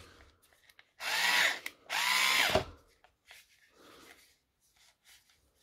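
Draper Storm Force 3.6V cordless screwdriver running unloaded in two short bursts, each under a second, its small motor whining, followed by faint handling sounds.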